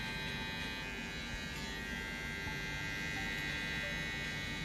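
Electric hair clippers buzzing steadily as they trim the side of a man's head.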